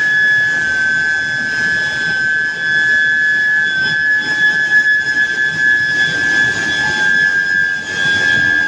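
Billet induction heating furnace running: a steady high-pitched whine from the induction coil and its power supply, over a noisy machine rumble.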